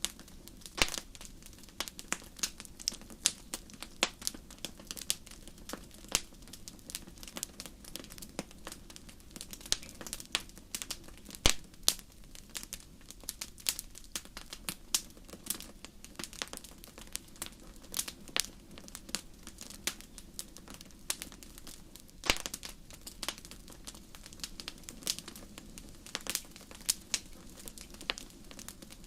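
Wood fire burning in a fireplace, crackling with irregular sharp pops several times a second, a couple of them much louder than the rest.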